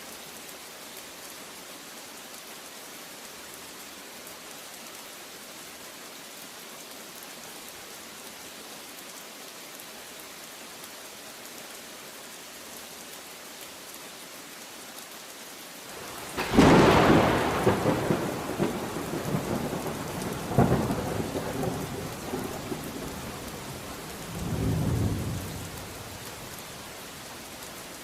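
Steady heavy rain, then a thunderclap crashes in a little past halfway. It rumbles on with a second crack and a deeper roll before dying back into the rain.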